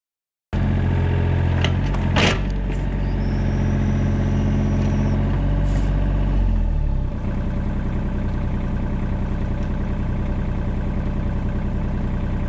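Compact excavator's engine running at raised throttle, with a few sharp knocks about two seconds in; about seven seconds in the engine note drops to a lower, steady idle.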